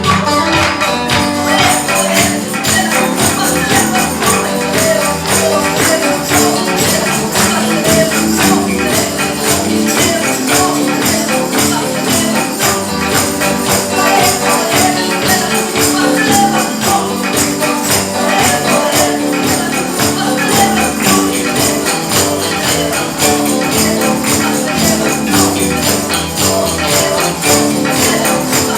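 Lively Latin Christian praise music with a tambourine shaking prominently on the beat over steady bass and melody.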